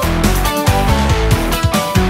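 Home-recorded song playing: a dense mix of bass and melody notes over a steady beat.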